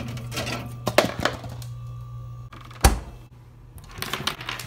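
Hotel minibar fridge being handled: clicks and clinks of the door and the cans and bottles inside, over a steady low hum. About three seconds in comes a single hard thud, like the door being shut, and the hum stops with it.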